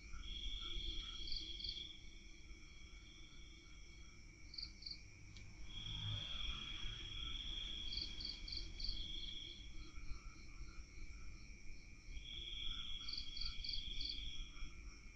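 Night insects singing: a high trill that comes in stretches of one to four seconds, with quick pulsed chirps over it, against a low rumble.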